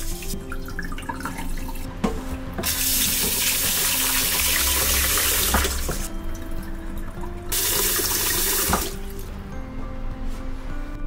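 Raw rice being washed by hand in a metal bowl in a stainless-steel sink: grains swished and sloshed in the water, with a tap running in two loud spells, one about three seconds long and one shorter near two-thirds of the way through. Background music plays underneath.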